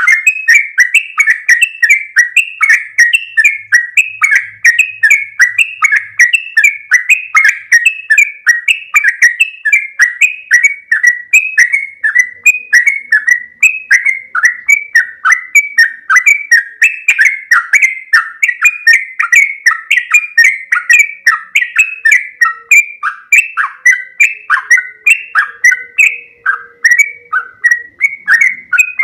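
Yellow-vented bulbul (trucuk) singing a long rolling 'ropel' song: a fast, unbroken run of short, bright, slurred notes, about four a second.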